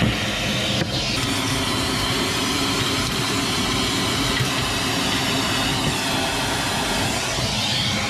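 Handheld electric fan tool running steadily through a long nozzle: rushing air with a motor whine that drifts up and down in pitch.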